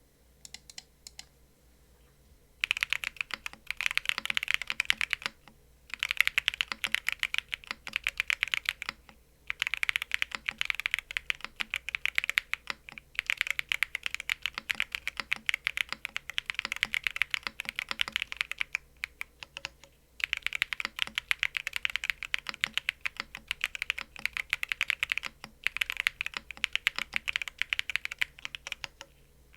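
Typing on a Cannonkeys BakenekoGO custom mechanical keyboard with Fadog White V3 switches, an FR4 plate on an O-ring mount and PBT keycaps. A few single key presses come first, then rapid runs of keystrokes lasting several seconds each, with brief pauses between them.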